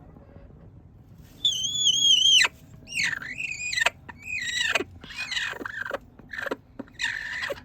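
A hen's high-pitched, wavering complaining calls from a nest box: one long call of about a second, then five or so shorter calls that fall in pitch. It is the sound of a hen unhappy at being crowded while she tries to lay.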